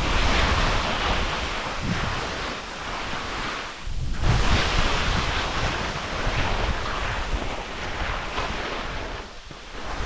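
Skis running and turning down a steep couloir of heavy, soft spring snow, the bases and edges hissing and scraping through the slush, mixed with wind rushing over the microphone at speed. The rush eases briefly about four seconds in and again near the end.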